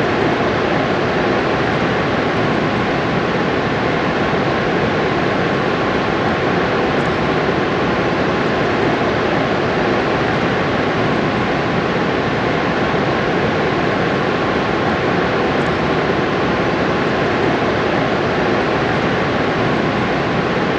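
Niagara Falls heard close up in the spray: a loud, steady roar of falling water that does not change.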